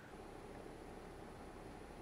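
Faint steady hum with a thin high-pitched whine over it.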